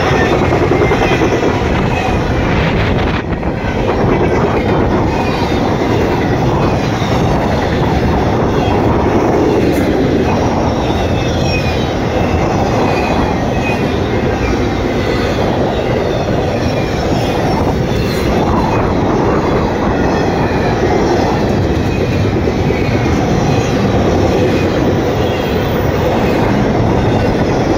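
Intermodal freight train rolling past, its flatcars and double-stack well cars making a steady, loud noise of steel wheels on rails.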